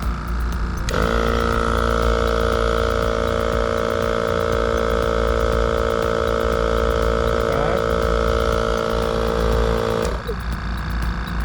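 Fortress 2-gallon ultra-quiet air compressor's motor starting about a second in, running with a steady hum and whine, then shutting off near the end and winding down.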